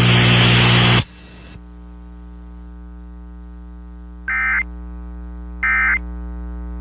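Radio static for about the first second, then a steady electrical hum on dead air. Two short bursts of data tones come about a second and a half apart: the EAS end-of-message (NNNN) header sounding after the warning.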